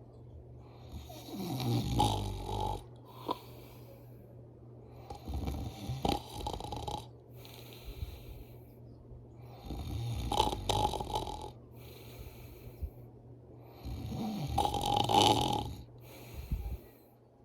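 A person snoring loudly in deep sleep: four long snores, each about a second and a half, coming roughly every four seconds.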